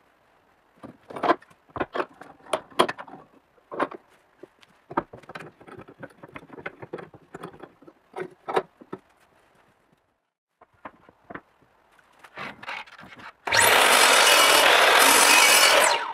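Hardwood boards and steel bar clamps being handled on a clamping table: a string of wooden knocks and metal clacks. Near the end a power tool runs loudly for about two and a half seconds, then cuts off sharply.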